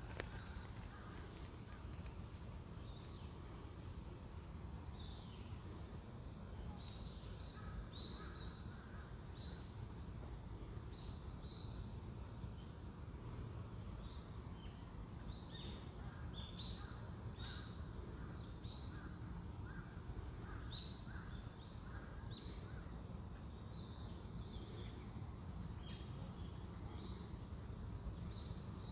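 Garden ambience: insects keep up a steady high-pitched trill, with short bird calls scattered through it over a low background rumble.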